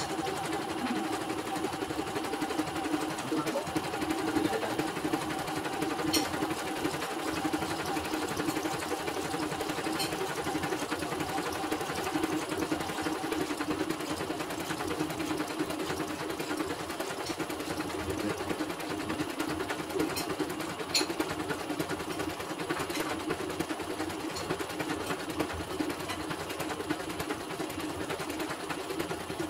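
CNY portable computerised embroidery machine stitching steadily at speed, a rapid, even needle rhythm with a few sharp clicks, on a test embroidery run after servicing.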